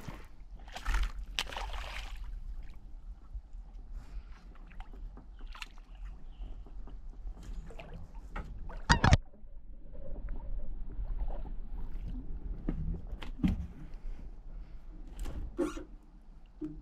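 Water sloshing against a plastic kayak's hull, with scattered short knocks and splashes as a smallmouth bass is reeled in and handled in the kayak; the sharpest knock comes about nine seconds in.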